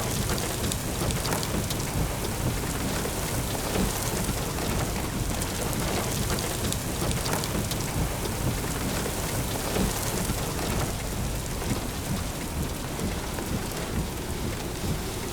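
Heavy thunderstorm rain pattering steadily on a surface, with a dense run of small drop ticks over a steady low rumble.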